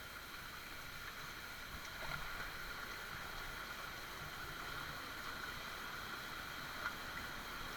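Steady rush of a river's flowing water, with a faint steady high ringing over it and a couple of small knocks.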